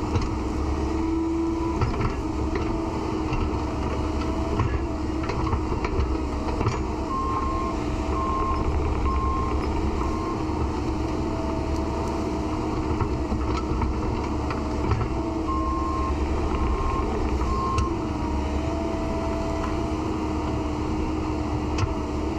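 Excavator's diesel engine running steadily under load with a whining pitch on top, working without pause. Its travel or back-up alarm beeps in two short runs, four beeps about a third of the way in and three about two-thirds in.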